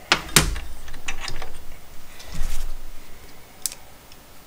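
Handling noise of small metal parts on a tabletop: a sharp knock right at the start, a quick run of light clicks about a second in, a duller thump around the middle, and a single click near the end.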